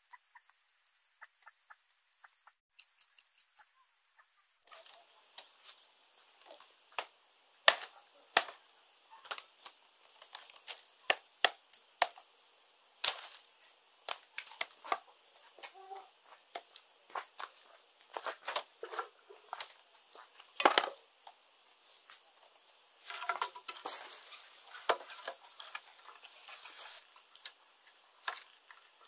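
Sharp, irregular cracks and knocks of dry bamboo strips being bent, pushed and tapped into a woven bamboo mat, crowding into a denser crackle in the last third. A steady high insect drone runs behind them.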